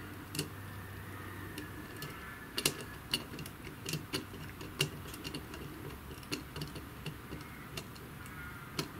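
Small precision screwdriver turning a screw in a terminal block to clamp a wire: faint, irregular small clicks and ticks, a few seconds apart.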